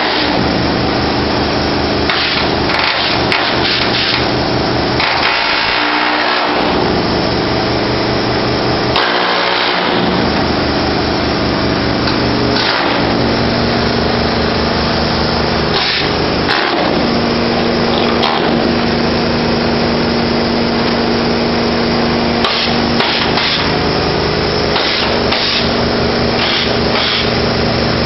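A power tool hammering rapidly and without pause, a harsh, loud, continuous racket that eases off briefly a few times.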